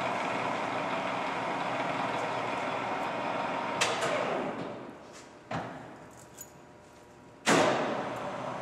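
Mazak Mate 14 x 40 toolroom lathe headstock running steadily at 317 rpm. About four seconds in, a click and the drive is switched off, and the spindle winds down with falling pitch. A clunk follows, then near the end the lathe starts up again with a sudden loud burst and settles into steady running at a higher spindle speed.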